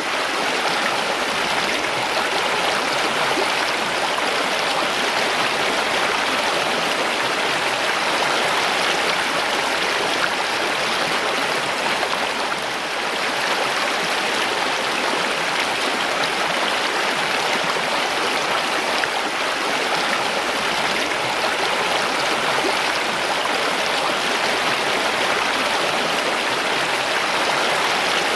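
Mountain stream rushing and splashing over rocks: a steady, full water sound that holds even throughout, with a slight dip about halfway through.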